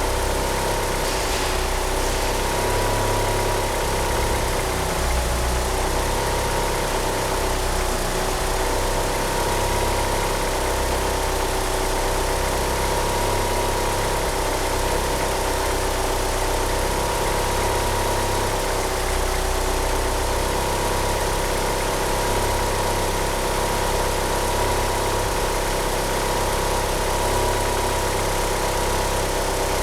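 Turbocharged 4G63 inline-four of a first-generation Mitsubishi Eclipse GSX idling unevenly, a rough idle that comes with its 850cc fuel injectors. Over it, a steady, slightly wavering squeal from the slipping power-steering pump belt.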